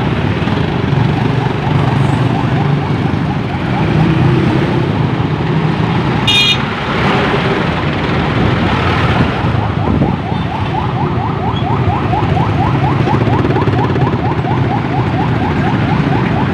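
Motorcycle engine and dense road traffic running steadily, heard from a moving motorbike. A brief high beep comes about six seconds in, and from about nine seconds a fast repeating chirp sounds several times a second.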